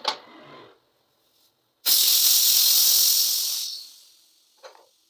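A blast of compressed gas hissing out during the flushing of a deep freezer's refrigeration lines. It starts suddenly about two seconds in, holds for nearly two seconds and then fades away.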